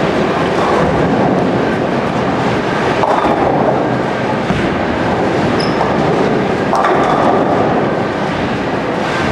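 Bowling alley din: balls rolling on many lanes and pins clattering, a dense continuous rumble with sudden louder clatters about three and seven seconds in.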